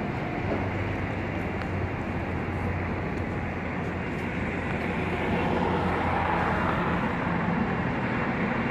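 Steady outdoor rumble of engines with a low hum, growing a little louder about five seconds in.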